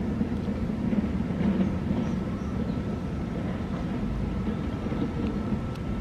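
Steady low rumble of road traffic, with a few faint ticks over it.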